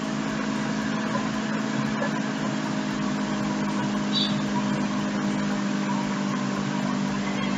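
Boiled beef pieces sizzling steadily as they fry in oily tomato-and-spice masala in an aluminium pot while being stirred, the bhuna stage of a beef pulao. A steady low hum runs underneath.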